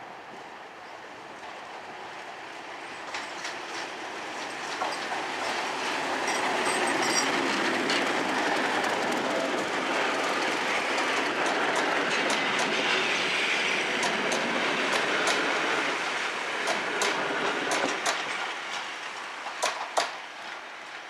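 DCR Class 31 diesel locomotive hauling passenger coaches past at close range. The engine sound builds as it approaches and stays loud while it passes, then gives way near the end to the clickety-clack of the coach wheels over rail joints as the train draws away.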